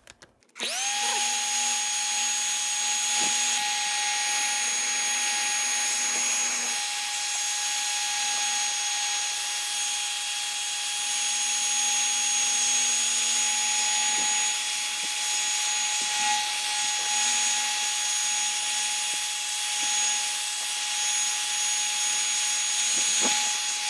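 Hair dryer switched on about half a second in. Its motor spins up, then runs steadily with a high whine over the rush of air as it blows hot air on the TV's circuit board to reflow its cracked solder joints.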